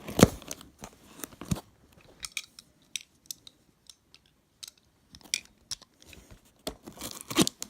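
A video camera set down with a knock, then scattered light clicks, taps and crinkles as a cardboard shipping box is handled, with a cluster of louder knocks near the end.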